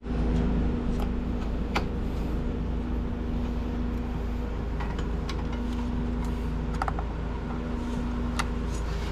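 A steady machine hum with a deep rumble runs throughout. Over it come a few sharp plastic clicks as the winch's plastic control box is handled: its cap lifted and a fitting pressed in.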